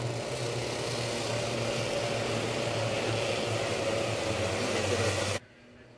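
Racing kart engines, 125cc two-strokes, running steadily as the field circulates at reduced pace before a restart. The sound cuts off suddenly near the end.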